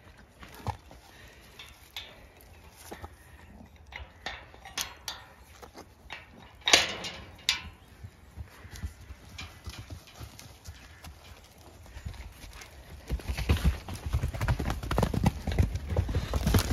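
Horses' hooves: scattered clops and knocks at first, with two sharp loud knocks about seven seconds in, then several horses breaking into a gallop on the soft lane, a fast run of heavy hoofbeats building over the last few seconds.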